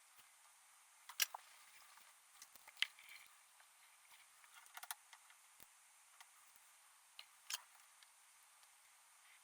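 Near silence broken by a few sharp clicks and taps, the loudest about a second in, near three seconds, near five seconds and near the end. These come from small parts and tools being handled on a workbench.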